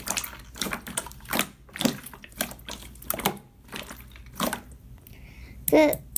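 Clear orange slime squeezed and pressed between hands, making irregular wet clicks and pops, about two or three a second.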